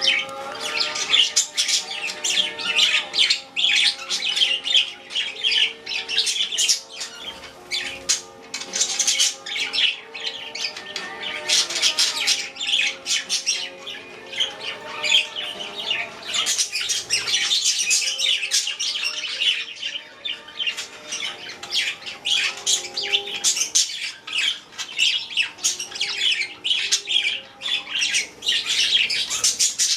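A flock of pet budgerigars chattering and chirping without a break, many birds calling over one another in a dense stream of short, high chirps and squawks.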